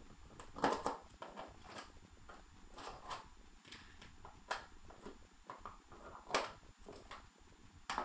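Retail packaging of a new laptop hard drive being handled and worked open, giving irregular crinkles, clicks and scrapes, several of them sharper and louder than the rest.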